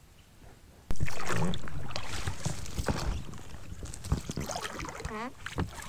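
Small boat on the water: splashing with knocks and clicks against the hull, starting suddenly about a second in, and a short squeak that dips and rises in pitch near the end.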